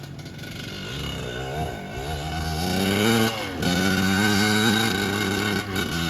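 Kawasaki KX100 two-stroke single-cylinder dirt bike engine revving up and down as it is ridden, climbing to a peak about three seconds in, dropping briefly, then holding at higher revs. The engine has a freshly rebuilt top and bottom end.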